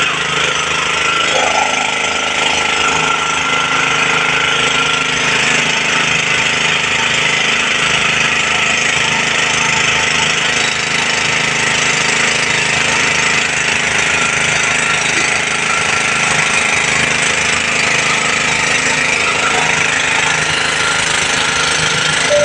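Small engine-driven water pump running steadily and loudly, with an even, rapid pulse, while water sprays from the fire hoses.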